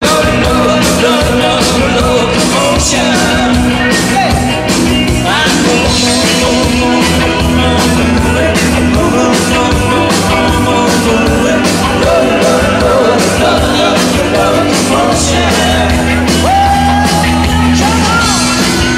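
Live rock band playing: electric guitars, bass and a steady drum beat, with male voices singing the melody.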